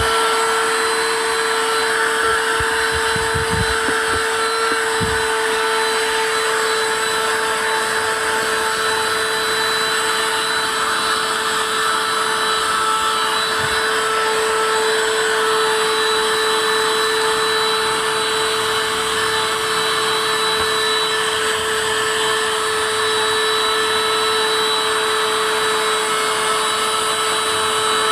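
Cordless battery-powered handheld car vacuum cleaner running steadily with a constant motor whine over the rush of air, vacuuming dirty car carpet. A few soft knocks come in the first five seconds.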